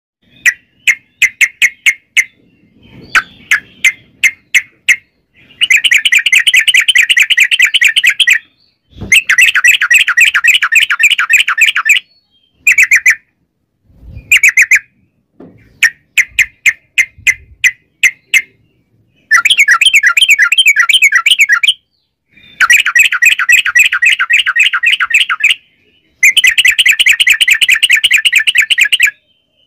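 A caged yellow-vented bulbul (trucukan) singing in full voice: a few short chirps, then long rapid trills of quickly repeated notes, each trill lasting two to three seconds, five times with brief pauses between them.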